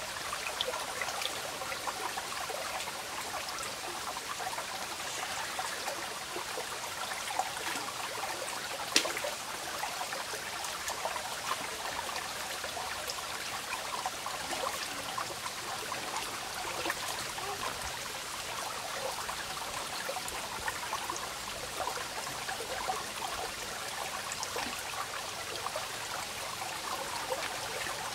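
Shallow rocky stream running over stones, a steady water sound, with scattered small clicks and one sharp knock about nine seconds in.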